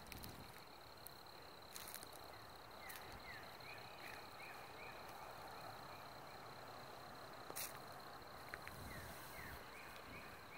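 Faint outdoor ambience with short chirping calls repeated in two runs, about three a second, over a steady high-pitched tone. A few sharp clicks sound, the clearest about seven and a half seconds in.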